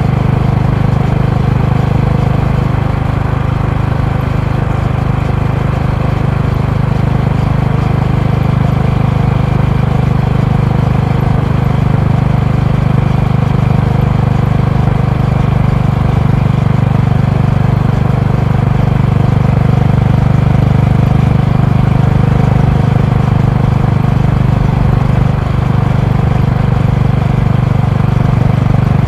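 Honda GB350's air-cooled single-cylinder engine and exhaust while riding at a steady cruise: a low, even engine note with little change in pitch.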